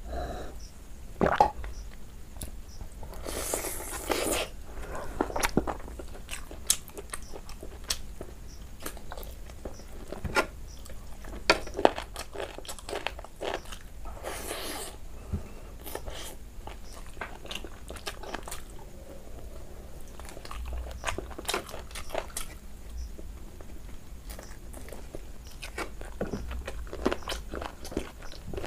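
Close-miked eating sounds of a person chewing a mouthful of rice and curry, with sharp wet mouth clicks and smacks throughout. There are two longer, hissy sounds, about four and fifteen seconds in.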